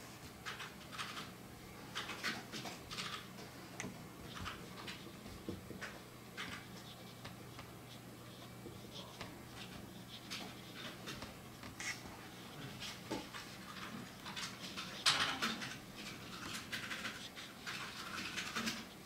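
Brush pen strokes on paper: short, irregular scratchy swishes, with a louder cluster of strokes about fifteen seconds in.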